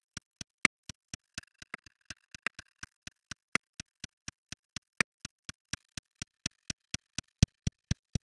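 Drum track heard through a transient designer's attack-only listen mode: only the brief clicks of each drum hit are left, about four a second, with silence between. Near the end a few of the clicks carry a low thump.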